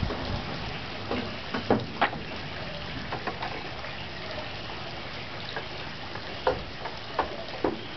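Thunderstorm rain falling steadily, with irregular heavy drops plinking close by. The loudest drips come a couple of seconds in and again several times near the end.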